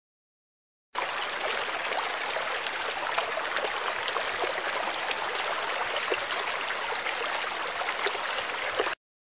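Intro sound effect: a steady rushing, stream-like noise with faint crackles through it. It starts abruptly about a second in and cuts off sharply near the end.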